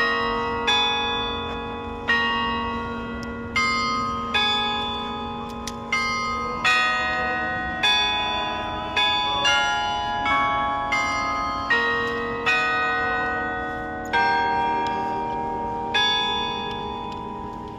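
Carillon bells playing a melody, each note struck and left ringing over the others. The notes come about every half second to a second and a half, and a last note about sixteen seconds in rings out and fades away.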